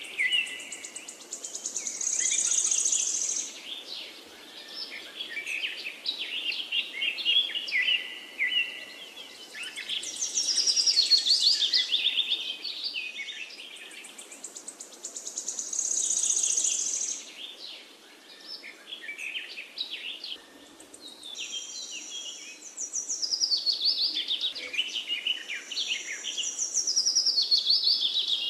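Birds singing: rapid high chirps and trills in overlapping phrases that swell and fade every few seconds.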